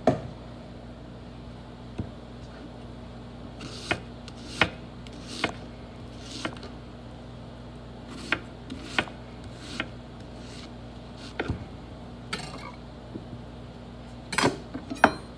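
Scattered knocks and clinks of kitchen utensils and dishes being handled on a counter during food preparation, irregularly spaced with a few quick clusters, over a steady low electrical hum.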